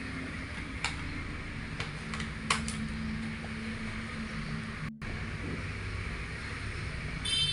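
A steady low hum with a few light clicks of a screwdriver and small screws on a laptop's plastic underside. A brief high-pitched squeal comes near the end.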